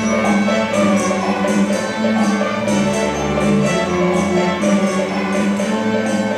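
String orchestra playing: sustained bowed chords in violins, cellos and basses, with a quick, even high-pitched tapping beat running through the music.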